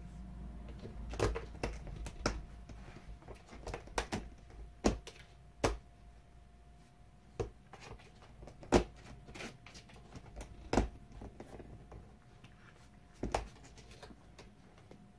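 A calico cat pawing and scratching at the bottom of a closed wooden door, making irregular sharp knocks and scrapes, about a dozen spread out with pauses between them.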